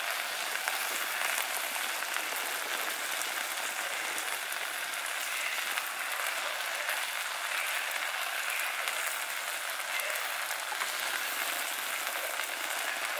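Chicken pieces sizzling and bubbling steadily in a stainless steel pot of soy-sauce adobo sauce as it simmers down.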